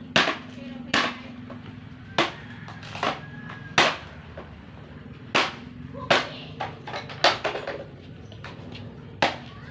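A series of sharp knocks at irregular intervals, each ringing briefly, with a quick run of several strikes around seven seconds in.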